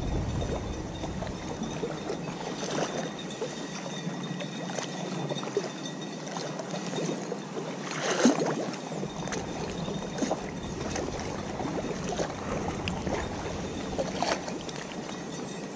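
Steady rush of moving water from a strong canal current, with a few faint brief rustles or knocks.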